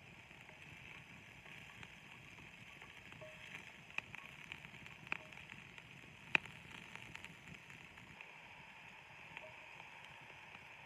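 Faint steady sizzle of onions softening in a cast iron pot over a campfire, with a few sharp clicks, the loudest about six seconds in.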